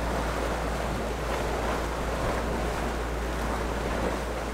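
Sea water washing along the hull of a small sailboat under way, with wind buffeting the microphone: a steady, even rush of noise.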